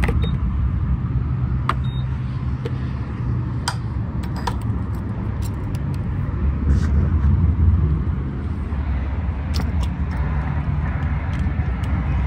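Motorcycle engine running with a low, steady rumble that gets louder about seven seconds in, with a few sharp clicks over it.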